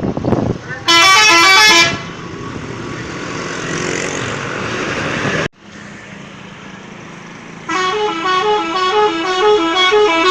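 Bus 'telolet' horn, a multi-tone musical horn, playing a quick tune of stepping notes: a short blast about a second in, and a longer one starting near the end. Road and traffic noise fills the gap between the two.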